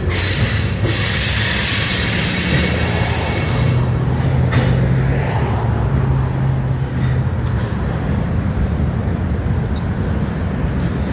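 Freight cars (a tank car, then double-stack container well cars) rolling past on the rails, with a loud high hiss and wheel squeal for the first few seconds on the curving track. It then settles into a steadier rumble with a few sharp clanks.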